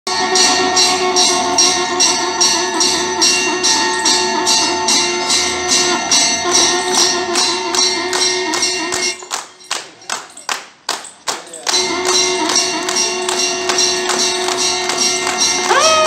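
Music with a steady beat and a group of people clapping in time with it. About nine seconds in the music drops out for a few seconds, leaving only the rhythmic hand claps, then it comes back.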